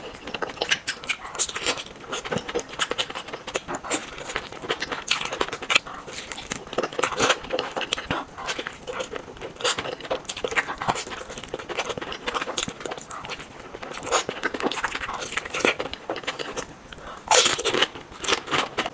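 Close-miked eating: a person biting and chewing crunchy food, with a steady run of irregular crunches and crackles and a louder crunch near the end.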